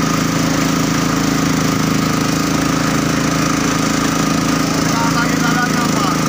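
Engine of a small motorboat running steadily at a constant speed, with an even chugging drone.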